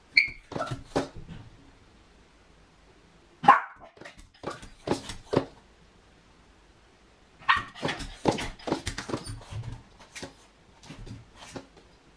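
A miniature pinscher barking at a closed door in several bursts with quiet gaps of a second or two between, and a brief high whine at the start. This is the barking of a dog left home alone with separation anxiety.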